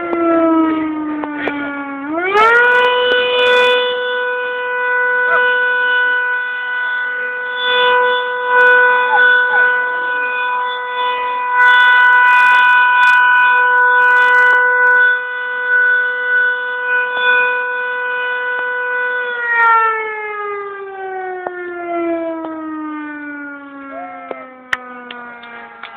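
Fire station siren sounding the noon signal. It dips briefly in pitch, then about two seconds in winds up quickly to a steady high wail. It holds the wail for some seventeen seconds, then slowly winds down in pitch to the end.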